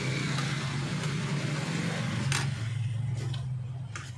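A motor vehicle engine running as it passes close by, a steady low hum that swells and fades near the end. One sharp click about two seconds in.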